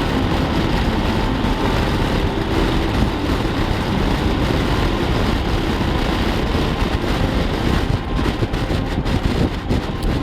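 Motorcycle cruising at highway speed: steady engine and road noise under heavy wind rush on the microphone, which becomes more gusty near the end.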